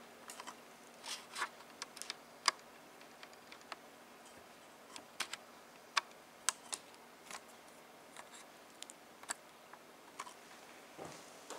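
Irregular small clicks and taps, about a dozen spread unevenly, from hands handling small hard computer parts and cable connectors, over a faint steady hum.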